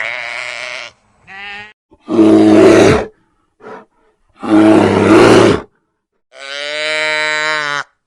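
A string of separate animal calls with short silences between them. There are two short pitched calls, then two loud rough calls about two and a half seconds apart, then a longer, steady-pitched call near the end.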